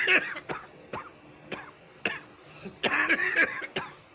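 A person coughing repeatedly with a bad cough: single short coughs about every half second, then a longer run of coughs about three seconds in and one more near the end.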